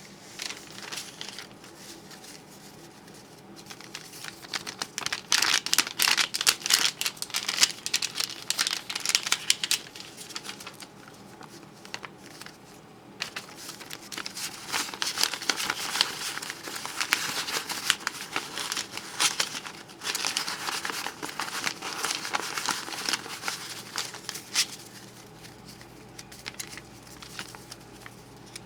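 Crisp new hundred-dollar bills being flipped back and forth and crinkled together, a dense crackling rustle of stiff paper money that comes in spells with short pauses between.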